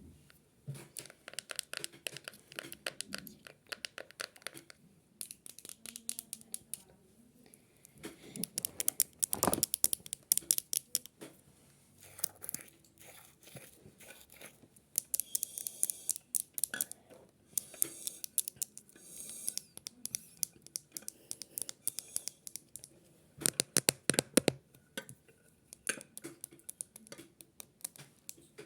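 Rustling and crinkling handling noise: irregular bursts of dense crackles and scratches, separated by short pauses.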